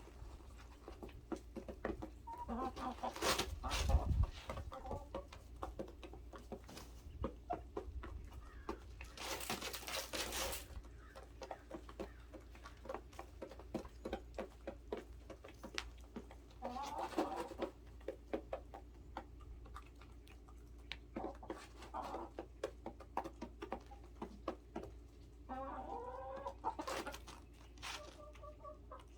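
Domestic chickens clucking on and off in a coop, with many small clicks and rustles between the calls. There is a low thump about four seconds in and a longer rustle near the ten-second mark.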